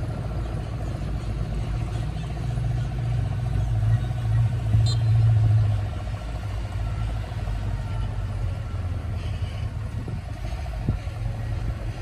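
Bulldozer's diesel engine running steadily with a deep rumble, growing louder for about three seconds midway, with a single light click about five seconds in.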